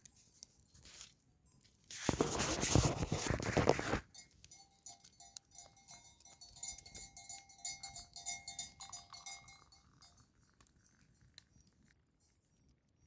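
Bells on grazing sheep clinking and ringing for several seconds before fading away. A loud rush of noise comes just before the bells, about two seconds in.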